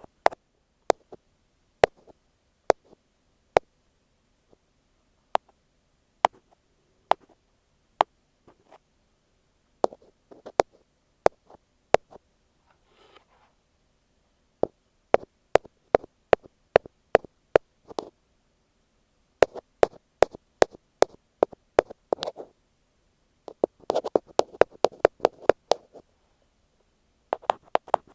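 Ear pick tapping on an earphone microphone: crisp clicks close to the mic, sparse and irregular at first, then quicker runs of taps in the second half. A soft rubbing sound lies under some of the taps near the end.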